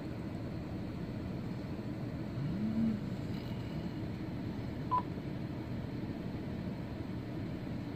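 Steady low rumbling background noise. About two and a half seconds in, a short tone rises in pitch and holds briefly, and about five seconds in there is a brief high beep.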